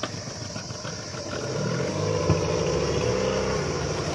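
Small boat's motor running, getting louder and picking up speed about a second and a half in, then holding steady.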